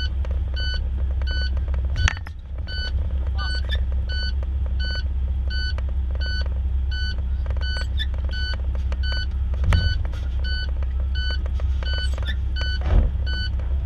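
A vehicle warning alarm beeping evenly, about one and a half beeps a second, over the low rumble of an idling engine, right after a collision. A few short knocks are heard, about two seconds in, near ten seconds and near the end.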